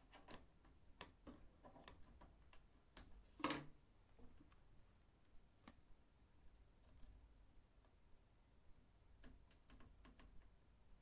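Small clicks of oscilloscope knobs and switches being turned. About four and a half seconds in, a steady, high-pitched tone from the velocity of sound unit's transmitter starts and holds; the transmitter is driven by a signal generator.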